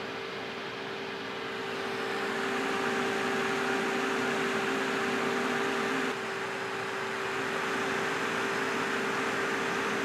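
Cooling fan on a 12 V Peltier module's heatsink running steadily: an even rush of air with a constant hum, getting a little louder over the first two seconds.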